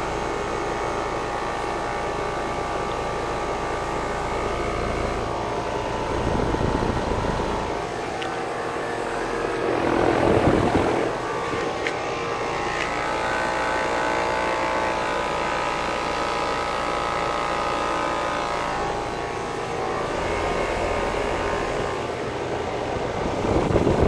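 Trane XB13 5-ton heat pump outdoor unit running steadily in cooling mode. Its Alliance scroll compressor hums with several steady tones under the rushing air of the Genteq condenser fan. The fan's rush swells briefly louder about ten seconds in and again near the end.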